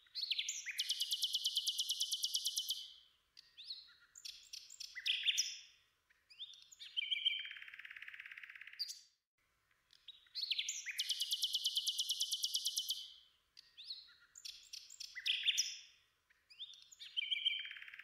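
Nightingale song: a fast trill of rapidly repeated notes, then short whistled and chattering phrases and a buzzy phrase. The same sequence of phrases comes again about ten seconds in.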